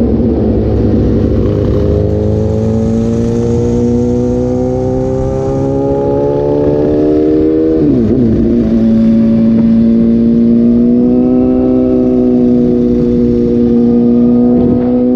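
Suzuki GSX-S750's inline-four engine running through an SC-Project slip-on exhaust with the dB killer removed, accelerating under load. The engine note climbs steadily for about eight seconds, drops sharply at a gear change, then climbs again more gently.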